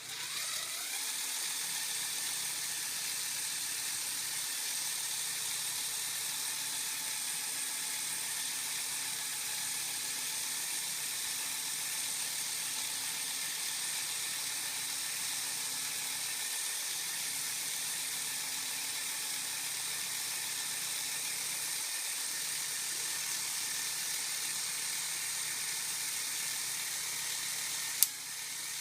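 Electric motor and plastic gear train of a Lego Technic four-wheel-drive model running, a steady whir that winds up in pitch as it starts. A sharp click near the end, with a brief dip in the whir.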